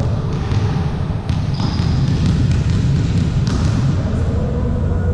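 Volleyballs being hit and bouncing on a sports-hall floor: several separate sharp impacts, a second or so apart, over a steady low rumble of the hall.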